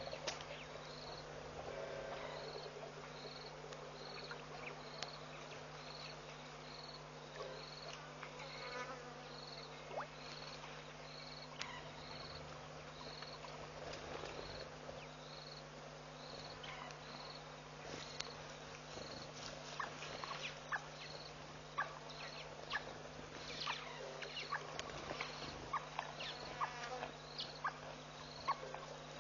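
An insect chirps high and short at an even, repeating pace, over a steady low electrical hum. Scattered clicks and snaps come more often in the second half.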